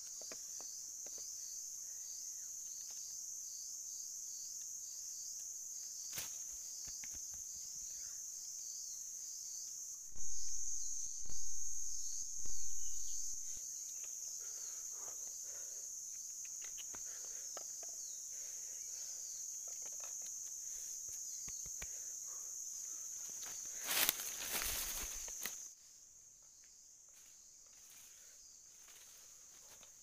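Steady, high-pitched buzzing of an insect chorus, with faint rustling of dry leaves. Three loud swells come about a third of the way in, and a loud rustling burst comes near the end, after which the buzzing stops.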